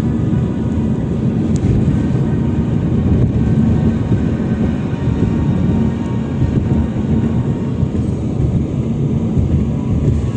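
Wind buffeting the microphone: a steady, low rumble.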